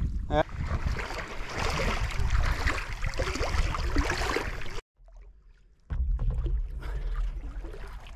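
Water sloshing and lapping around a stand-up paddleboard under paddle strokes, with wind rumbling on the board-mounted camera's microphone. The sound cuts out for about a second near the middle.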